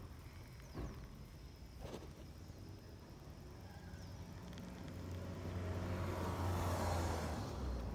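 A motor vehicle passing: a low engine hum and road noise swell from about halfway through, peak near the end and begin to fade. A few faint knocks come earlier.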